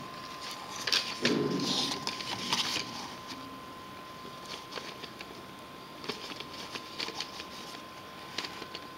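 Handling noise in a small room: a louder rustle about a second in, lasting a couple of seconds, then scattered light clicks, over a faint steady high whine.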